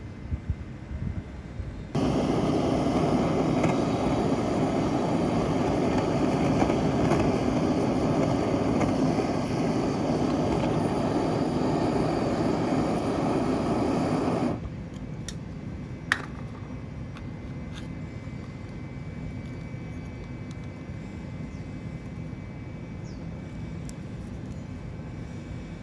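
A loud, steady roaring rush of a burner flame heating a pot of lead to melting, which cuts off abruptly about halfway through. It leaves a much quieter steady background with a single sharp click, as the molten lead is poured into a paper mold.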